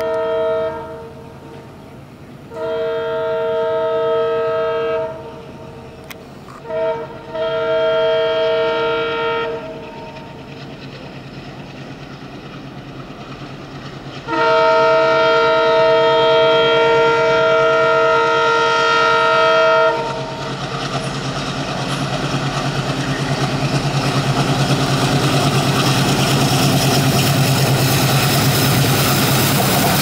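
WDM-3D ALCO diesel locomotive's two-tone horn sounding in repeated blasts: a few blasts of two seconds or so and a brief toot, then one long blast of about five seconds. After that the locomotive's diesel engine, chugging hard under acceleration, and the train's running noise grow steadily louder as it comes in and passes.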